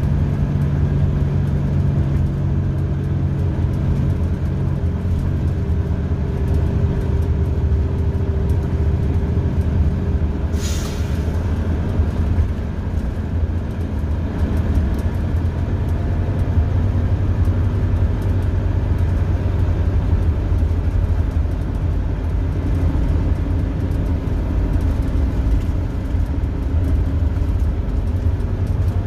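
2001 Orion V diesel transit bus under way, heard from inside the cabin: its Detroit Diesel Series 50 EGR engine and Allison transmission give a steady low rumble with road noise. A brief hiss comes about ten seconds in.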